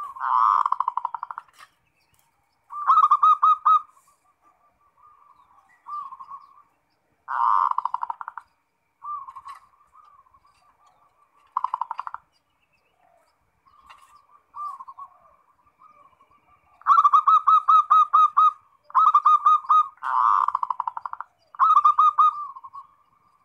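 Zebra dove (perkutut) singing: repeated bouts of rapid, rolling coos, each about a second long and a few seconds apart, with softer cooing in between. The bouts come close together near the end.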